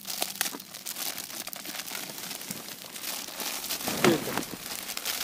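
Plastic bag of dried breadcrumbs for groundbait crinkling and rustling in the hands, a dense, irregular crackle.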